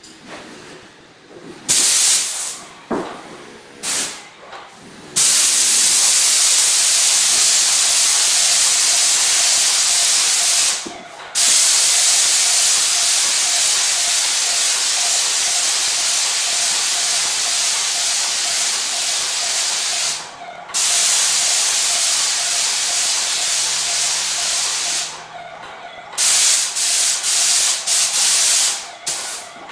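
Spray gun spraying plaster onto a wall: a loud, steady hiss in long passes of about five to ten seconds, cut off briefly between passes, with a few short bursts of spray at the start and near the end.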